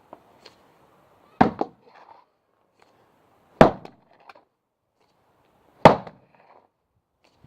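A 3.5 lb axe chopping into a log of hard beech on a chopping block: three sharp strikes about two seconds apart, each followed by a short, lighter clatter of wood.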